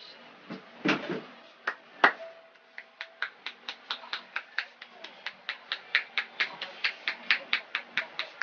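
Hand strikes of percussive massage (tapotement): a couple of separate slaps, then from about three seconds in a quick, even run of sharp hand strikes, about four a second.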